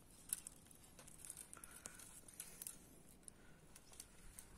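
Faint light clicks and crackling of dry twigs being handled and laid in a pile on bare rock.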